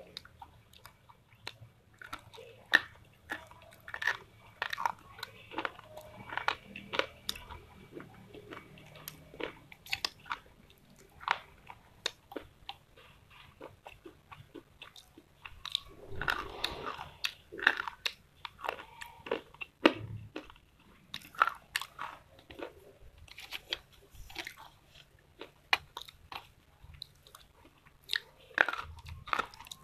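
Close-up biting, crunching and chewing of slate pencils dipped in paste: irregular sharp crunches between softer chewing.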